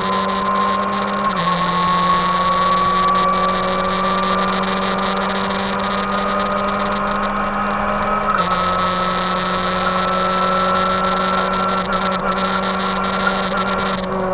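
Race car engine running hard, heard from inside the stripped, roll-caged cabin, with a whine that rises slowly and steadily in pitch as the car picks up speed along the straight. The lower engine note steps down twice, about a second and a half in and again about eight and a half seconds in.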